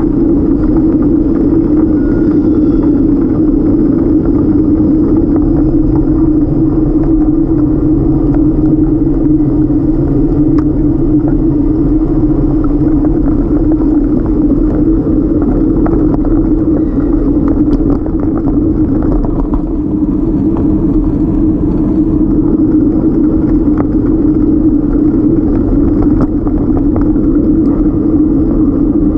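Steady, loud rumble of wind and road noise picked up by a bike-mounted camera while riding a folding bike along a paved bike lane.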